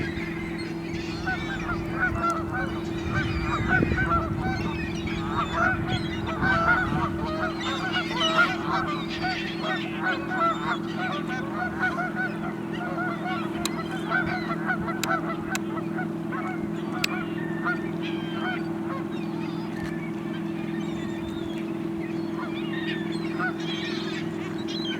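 A large flock of geese honking all together, many short overlapping honks in a continuous clamour, busiest in the first half. A steady low hum runs underneath.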